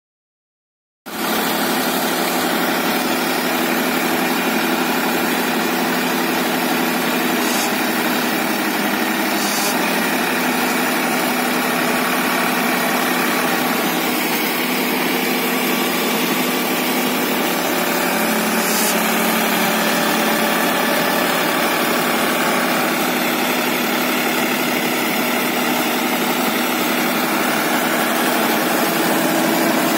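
A New Holland 6010 tractor's diesel engine starts running steadily about a second in, under load as it drives a rotavator tilling soil.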